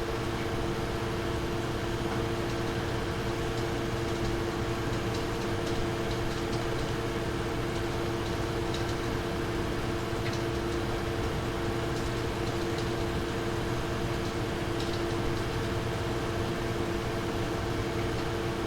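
Nvidia GeForce RTX 2070 Super graphics card fans running at a steady speed, set to a custom fan curve. They make an even hum with two close tones over a whoosh of air, with no revving up and down in this stretch.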